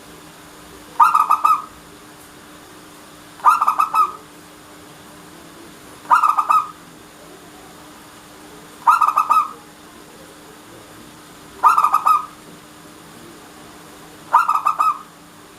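Zebra dove (perkutut) cooing: six short phrases of quick rolling notes, one about every two and a half to three seconds.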